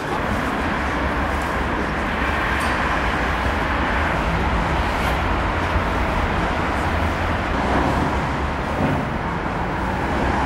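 Train in a railway station making a steady low rumble with a broad hiss over it.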